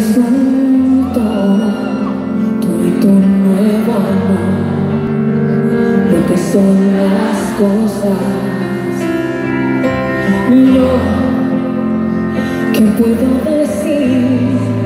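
A female vocalist singing a slow pop ballad live with band accompaniment, amplified through the concert hall's PA.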